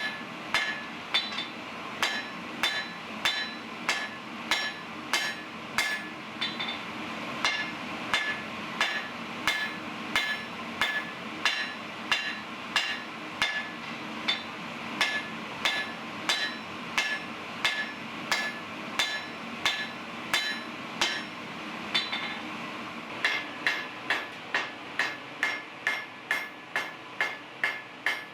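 Hammer blows on a jackhammer bit being forged on an anvil, about two a second, each with a bright metallic ring. After a short pause about three-quarters of the way through, the blows come quicker. A steady low hum runs underneath.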